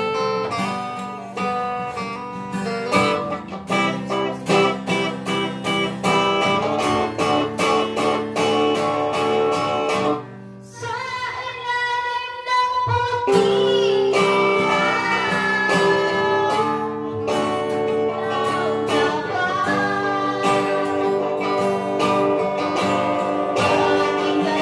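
Acoustic guitar strummed in chords alongside an electric guitar, with a girl singing. The strumming drops away briefly about halfway through, then the playing and singing come back fuller.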